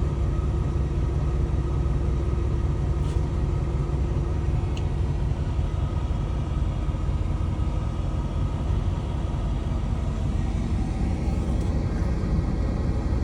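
Steady low rumble of a semi-truck heard from inside the cab, engine and road noise with no change in pitch.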